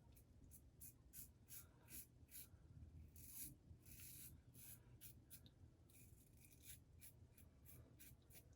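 Faint scraping of a Razorock Eco safety razor's blade cutting lathered stubble: short strokes, about two or three a second, with a couple of longer scrapes midway.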